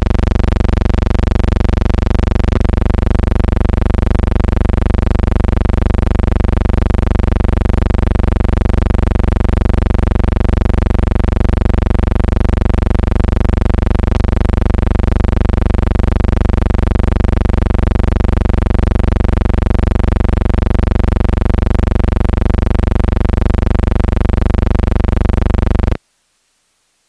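Loud, steady electrical hum with many overtones on the soundtrack of a silent film transfer, with two faint clicks about two and a half and fourteen seconds in; it cuts off suddenly near the end.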